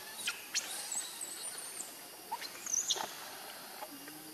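A series of short, high-pitched animal squeaks and chirps over about three seconds, with one drawn-out whistle-like squeak about a second in. A short, low, steady call comes near the end.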